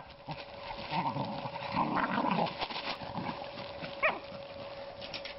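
Cocker spaniel puppies growling while they play-fight, with one sharp high yelp about four seconds in.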